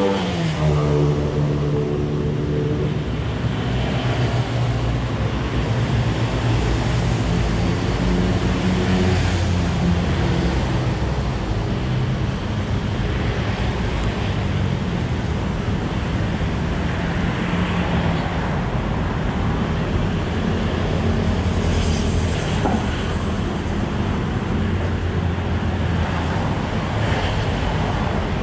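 A road vehicle's engine running with traffic and road noise. Its note falls right at the start as it eases off, then holds fairly steady.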